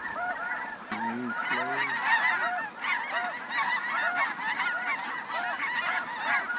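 A large flock of snow geese calling overhead: a dense, continuous chorus of many overlapping high-pitched honks, with two deeper calls about a second in.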